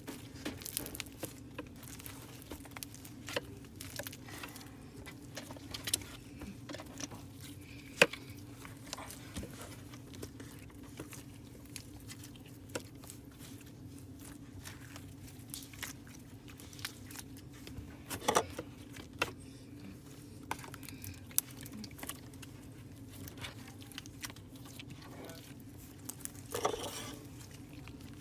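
Slime being worked by hand: a run of small, irregular clicks and pops, with a sharper one about eight seconds in and a cluster around eighteen seconds, over a steady low hum.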